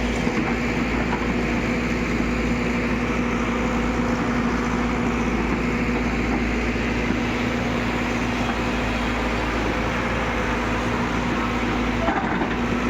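Diesel engine of a heavy earthmoving machine running steadily at a constant speed, with an even hum.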